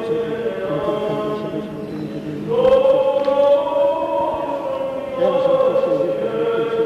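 Byzantine chant of the Greek Orthodox Divine Liturgy: voices singing long held notes that turn slowly in pitch. A louder phrase comes in about two and a half seconds in.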